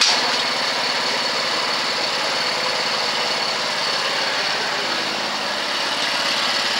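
Fuji two-cylinder autorace engine running at a steady idle, its rapid firing pulses continuous, while it runs poorly from an oil leak.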